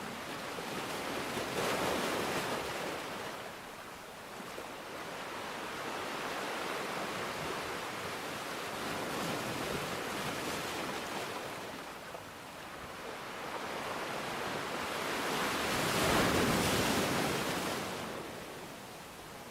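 Ocean surf: waves rolling in as a hiss of water that swells and fades, breaking loudest about two seconds in and again near the end.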